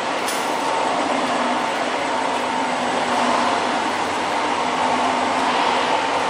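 Steady running noise of food-processing factory machinery: an even rushing din with a faint constant hum, unbroken throughout.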